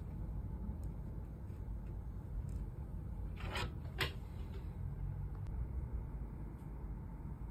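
Steady low room rumble. About three and a half and four seconds in come two short scraping rasps, which are the smartphone being handled on the wooden table as the charging cable goes in.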